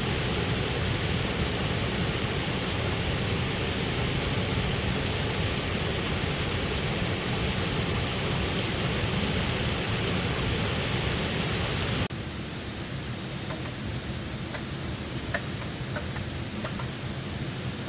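Steady rush of falling water. About twelve seconds in it cuts abruptly to a quieter, duller rush with a few faint light clicks.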